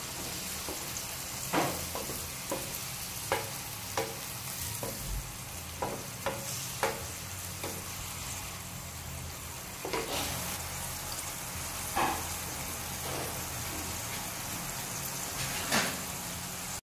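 Pork pieces sizzling in a pan of sauce while a wooden spatula stirs them, scraping and knocking against the pan in irregular strokes. The sound cuts off suddenly near the end.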